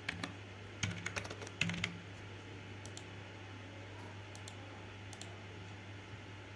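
Computer keyboard typing: a quick run of keystrokes in the first two seconds, then a few single clicks spaced out, over a faint low steady hum.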